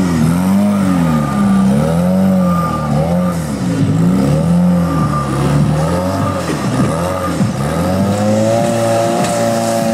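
Rock-crawler buggy's engine revving up and down over and over, about once a second, as it works over large boulders; near the end it holds steadier, higher revs.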